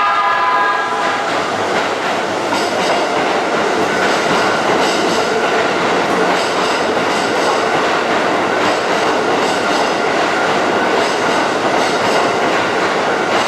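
Electric commuter train running past on the station tracks: a steady loud rumble with irregular wheel clicks over rail joints, and a brief pitched whine in the first second.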